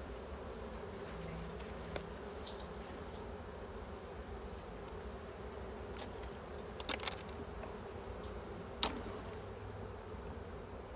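Honey bee colony buzzing steadily in an opened hive during a frame-by-frame inspection, with a few short light clicks, a cluster about seven seconds in and one near nine seconds.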